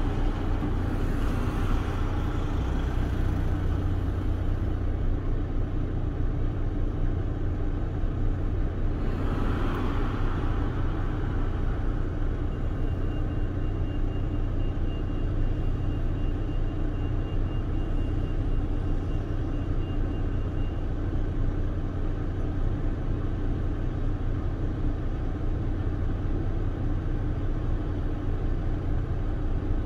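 Car driving along a road: a steady low rumble of engine and tyre noise, with a brief louder rush of noise about nine seconds in.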